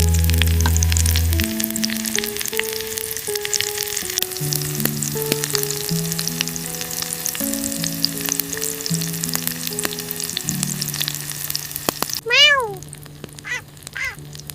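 Slow background music of held notes over a steady sizzling crackle, like food frying. The crackle stops about twelve seconds in, and a cat meows once, followed by a few shorter calls near the end.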